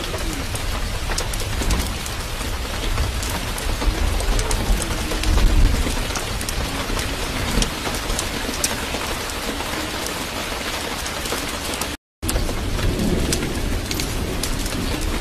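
Steady rain, with small crackles and low rumbles like distant thunder. The sound cuts out completely for a moment about twelve seconds in, then resumes.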